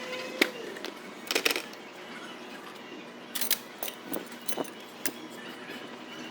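Scattered light metallic clicks and clinks, a few at a time at uneven intervals: tools and suspension parts being handled.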